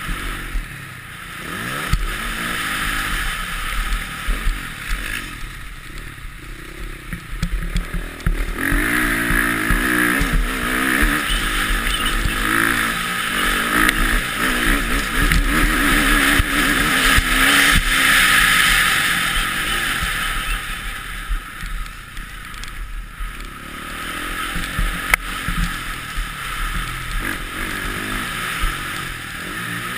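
Motocross bike engine revving up and down as the rider accelerates and shifts, with wind noise on the helmet camera. The revving is loudest in the middle stretch and eases off for a few seconds after it.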